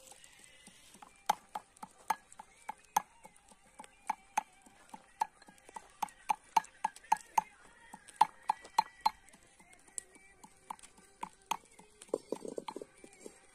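A run of sharp, irregular knocks, roughly two to three a second, with a short rougher patch of sound near the end.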